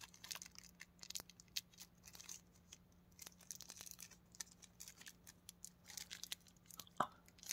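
Faint scattered clicks and crinkles of plastic wrapping and tape being handled and peeled off a figure's small stand rod, with a sharper click near the end.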